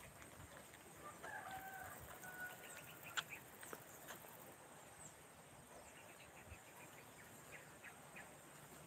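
Quiet outdoor ambience with a rooster crowing faintly about a second in and scattered faint bird chirps, broken by one sharp click about three seconds in.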